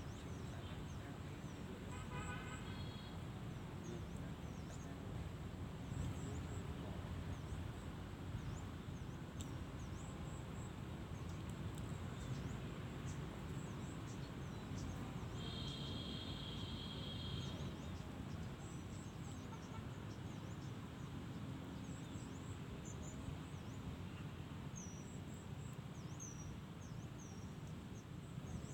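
Open-air background sound: a steady low rumble with faint, scattered high chirps throughout. Two brief high tones stand out, one about two seconds in and a higher, longer one about midway.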